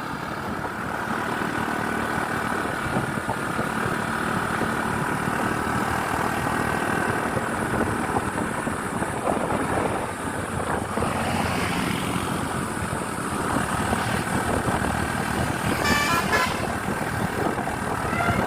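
Steady bus engine and road noise, with a short blast of a multi-tone telolet horn near the end.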